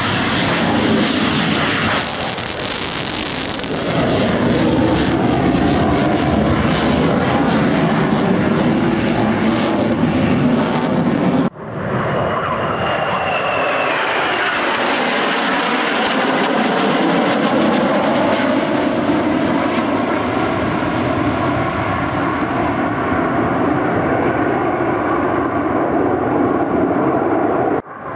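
Eurofighter Typhoon jet taking off, its engines loud and steady. After a sudden cut about eleven seconds in, a formation of Northrop F-5 jets passes overhead, their jet noise falling in pitch as they go by.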